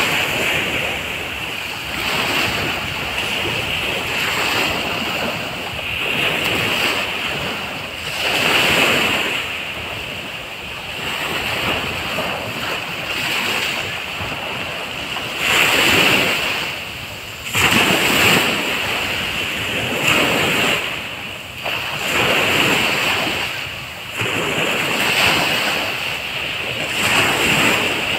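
Small sea waves washing and breaking on a sandy shore, surging and falling every couple of seconds, with a few louder surges about halfway through.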